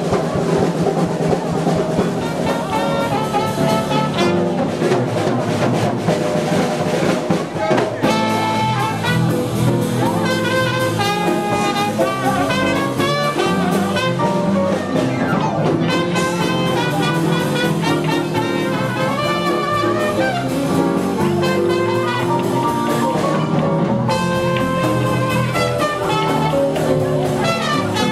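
Live jazz band playing: a trumpet leads over electric bass and drums.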